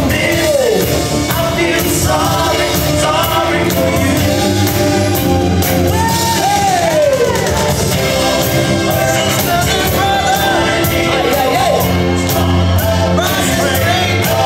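Loud dance music with singing over a DJ's sound system, with shouts and whoops from the crowd.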